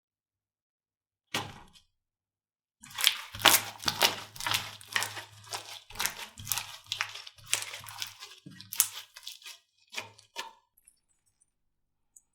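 Slime being squeezed and pressed by hand, making a run of sticky crackles and pops for several seconds after a single click about a second in.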